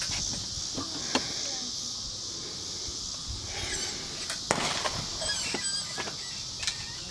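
Steady high-pitched insect chirring, with a few sharp knocks on top, the loudest about a second in and about four and a half seconds in.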